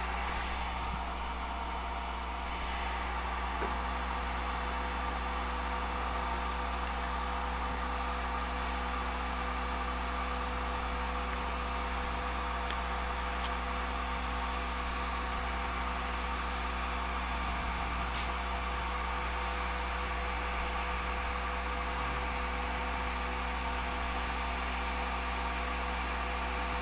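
Steady hum and fan noise from a Snapmaker 2.0 laser engraver running, with a few faint ticks.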